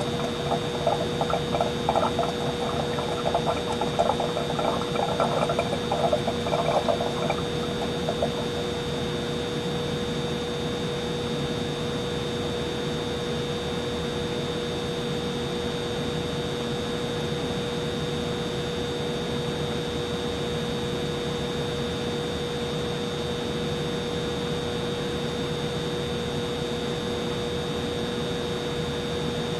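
Humidifier running with a steady hum and a high, constant whine, with irregular water gurgling and bubbling for the first seven seconds or so.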